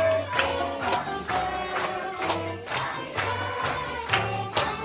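Music with singing over a steady beat, with a bass line and percussion hits.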